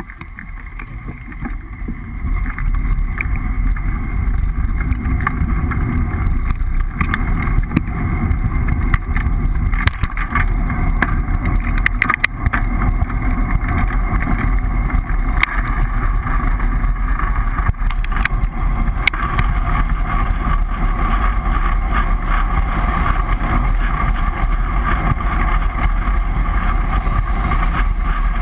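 Wind buffeting the microphone of a bicycle-mounted GoPro at speed, mixed with tyre and road rumble. It builds over the first few seconds, then holds steady, with a few sharp knocks from bumps in the road.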